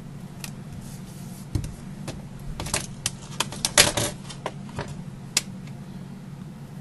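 Hands handling small cardstock squares and a plastic glue bottle on a tabletop, making a scatter of small clicks and taps. The clicks bunch together in the middle, loudest about four seconds in, over a steady low hum.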